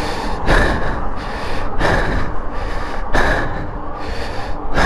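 A cyclist breathing hard into the microphone while pedalling uphill, with four heavy exhalations about a second and a half apart over a steady low rumble.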